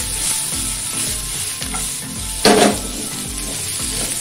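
Mixed vegetables sizzling in hot olive oil in a nonstick frying pan as they are tossed and stirred with a wooden spatula. One brief, louder scrape comes about halfway through.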